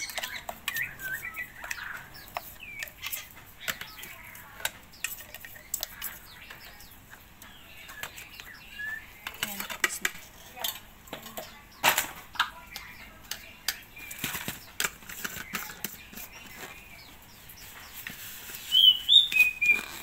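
Repeated knocks, taps and scrapes on a stainless steel blender jar as blended bird food is emptied out into a plastic container. Caged birds chirp now and then, loudest in a short burst of chirps near the end.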